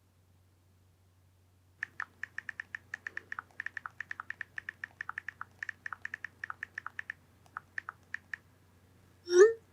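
Manual typewriter being typed on: a fast run of sharp key strikes, several a second, slowing to a few last strikes. Near the end comes one short, louder rising sound, the loudest moment.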